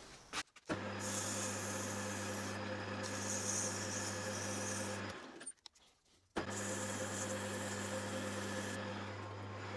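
Metal-turning lathe running with a steady motor hum while abrasive is rubbed against the spinning aluminium dust cap to polish its outside, giving a continuous rasping hiss. The sound cuts out suddenly for about a second midway, then resumes.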